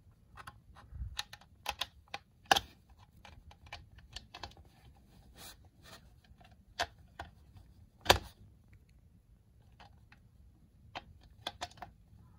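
Scattered small clicks and taps of a USB cable being pressed into the groove of a plastic lamp base while the lamp is handled, with two louder knocks, one about two and a half seconds in and one about eight seconds in.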